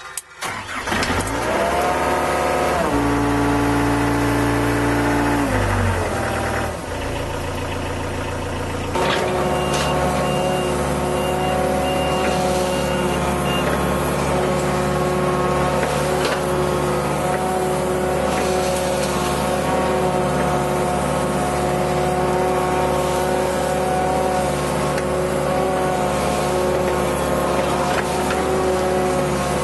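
Volvo EC55C mini excavator's diesel engine starting up and running, its speed shifting in the first few seconds, then stepping up about nine seconds in and running steadily at higher revs. A short run of high beeps sounds about ten seconds in.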